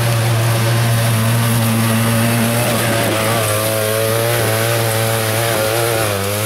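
Side-by-side UTV engine from the 900cc class revving hard as it climbs a rocky hill, its pitch rising and falling with the throttle over a steady low drone.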